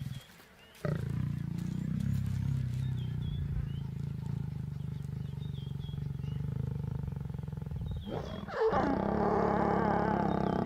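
Lions growling during mating: a low, steady rumbling growl, then about eight and a half seconds in a louder, higher-pitched growl that rises and falls. Small birds chirp faintly in the background.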